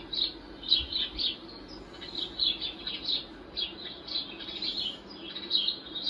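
Sparrows chirping, a steady stream of short, high chirps several times a second, played back from a video of sparrows.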